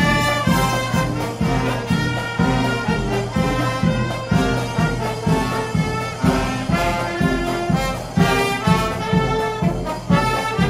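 Marching brass band playing a tune, trombones and trumpets carrying the melody over a steady beat of about two a second.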